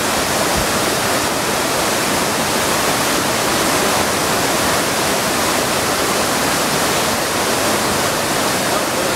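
Sable Falls, a tiered waterfall, pouring over rock ledges: a steady, even rush of falling water.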